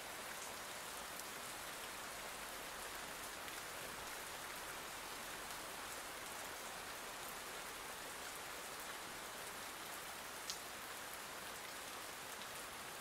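Steady, soft rain falling: an even wash of rain sound with no let-up, and a single faint tick about ten and a half seconds in.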